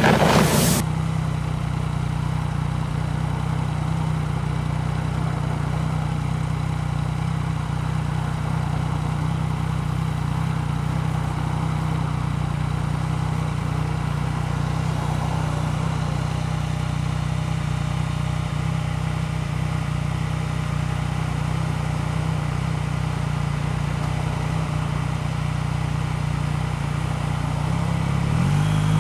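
Yamaha MT-09's inline-three engine idling steadily at a standstill, its note rising near the end as the bike starts to move off. A brief boom sounds in the first second.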